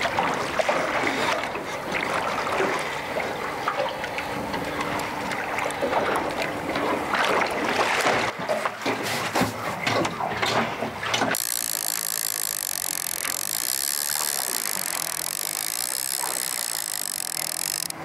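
Water slapping and splashing against a small aluminium boat's hull, with wind noise and scattered knocks. About eleven seconds in, it cuts abruptly to a steady hum made of several even tones.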